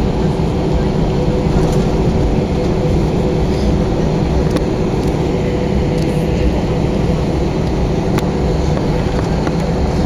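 Airbus A320 cabin noise: a steady low rumble of the jet engines and airflow, with a steady drone, heard from inside the passenger cabin.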